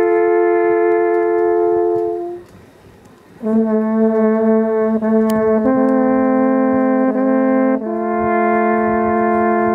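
Two alphorns playing a duet in long held notes. A chord stops about two seconds in, and after a pause of about a second the pair comes back in: one horn holds a steady low note while the other moves between notes above it.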